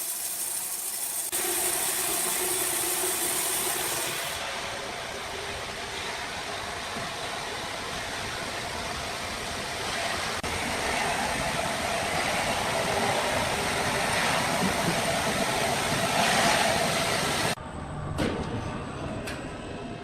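Steady, loud mechanical noise of sawmill machinery running. It shifts abruptly about a second in and again around four seconds in, drops away suddenly near the end, and is followed by two sharp clicks.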